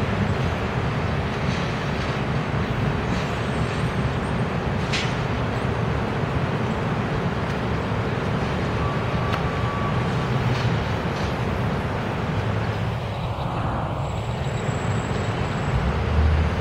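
New York City subway train running past on outdoor track: a steady noise of wheels and running gear on the rails.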